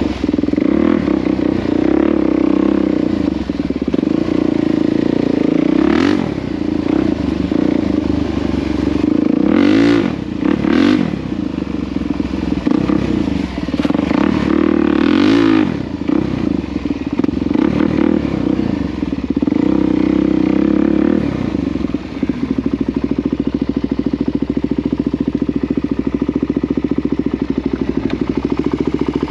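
Motorcycle engine running under way, revving up and dropping back several times. About two-thirds of the way through it settles into a steady, even run.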